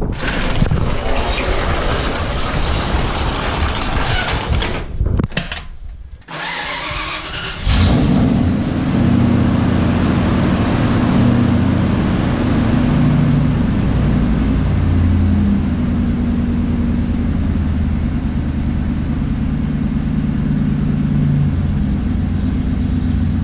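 A tractor engine starts about eight seconds in and settles into a steady low idle, cold and left to warm up. Before it, a loud rushing noise with two short breaks.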